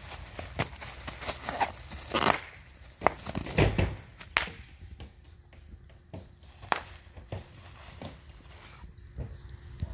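Bubble wrap popping under a dog's paw and snout: irregular sharp snaps, with crinkling of the plastic sheet in between.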